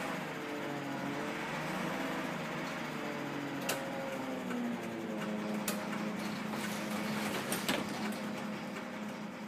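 Leyland National Mark 1 bus's diesel engine heard from inside the bus, its note rising and falling as the bus moves at low speed, then settling to a steady idle about halfway through. Three sharp clicks come about two seconds apart.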